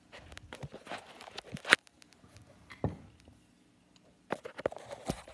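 Handling noise as a phone camera is moved and set down on a table and a wooden paracord jig is worked: irregular clicks, taps and light rustles. There is a sharper knock a little under two seconds in, another about a second later, and a quick cluster of knocks near the end.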